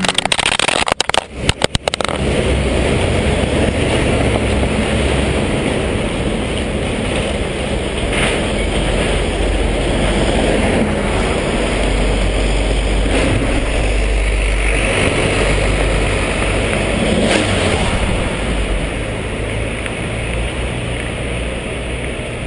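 Harley-Davidson Night Rod's V-twin engine running steadily under way, with heavy wind rushing over the camera. The sound cuts out sharply a few times in the first two seconds.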